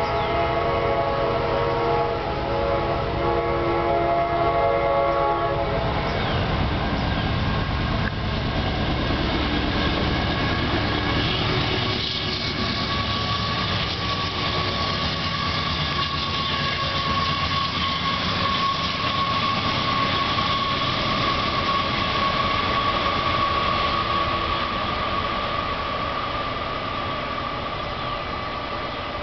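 A CSX light-engine consist of diesel locomotives running with no train behind them. The lead unit's multi-chime air horn sounds in a few blasts over the first six seconds. Then the locomotives pass with heavy engine rumble and wheel noise on the rails, and a steady high whine runs through the second half.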